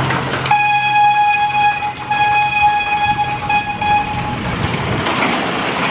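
Amusement-park ride train sounding its horn on departure: two long blasts and a shorter third on one steady high note, over the running noise of the train.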